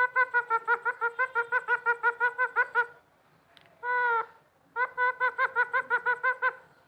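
Pet green parrot calling in a quick run of short, even-pitched notes, about five a second, then one longer held note, then another quick run.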